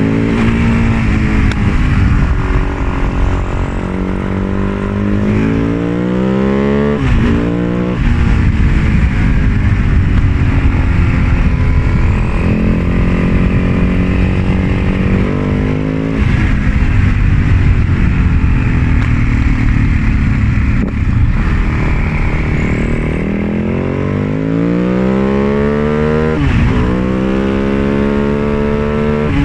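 2004 Husaberg FS 650's single-cylinder four-stroke engine running loudly, its pitch climbing slowly and falling back several times. There are two sharp, brief dips, about a quarter of the way in and near the end.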